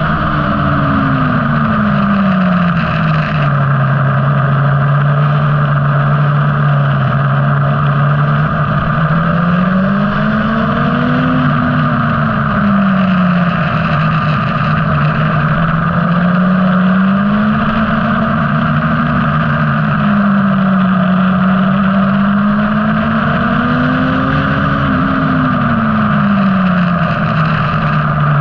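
Onboard sound of a motorcycle at speed on a track: its engine note falls and levels off early on, then rises and falls smoothly three more times. Heavy wind rush on the microphone runs throughout.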